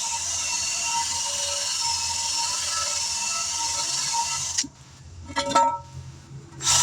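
An air-powered tool runs steadily with a hiss and a wavering whine. It cuts off about four and a half seconds in, a few metal clinks follow, and it starts up again near the end.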